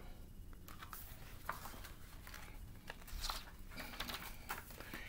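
Faint rustling and soft clicks of a book being handled and a page turned.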